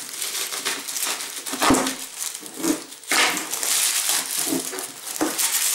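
Plastic bag and stretch-film wrapping crinkling and rustling in irregular bursts as hands pull it off a bottle, with a few dull knocks.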